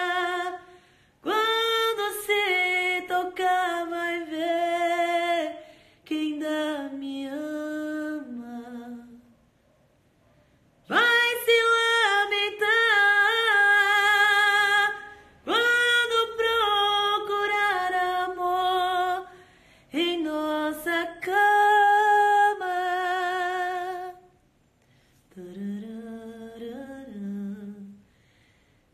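A woman singing a cappella: long, held phrases with a wavering vibrato, broken by short pauses. Near the end she drops to a quieter, lower line.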